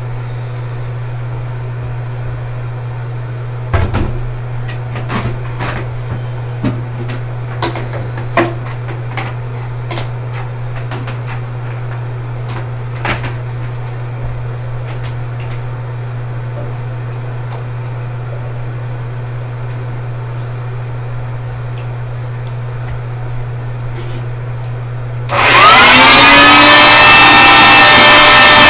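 Scattered clicks and knocks as a wet/dry shop vacuum is handled, then about 25 seconds in the shop vac is switched on: its motor winds up quickly into a loud, steady whine.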